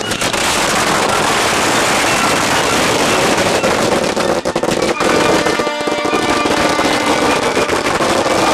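Ground fireworks going off, a dense run of rapid cracks and fizzing bangs in quick succession, with music playing underneath.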